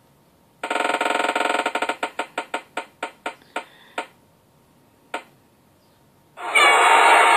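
Slot-machine sound effect of an online fruit-machine name picker played through computer speakers: rapid reel clicks that slow to separate ticks and stop as the reel settles on a name. Near the end, a loud electronic jingle starts up as the winner is shown.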